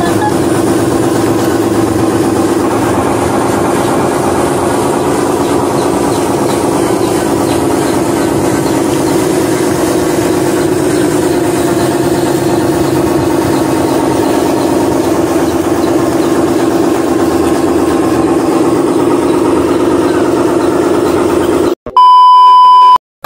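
Simulated diesel truck engine sound, steady and even, for an RC dump truck driving off-road. Near the end it cuts off and a loud one-second test-tone beep plays.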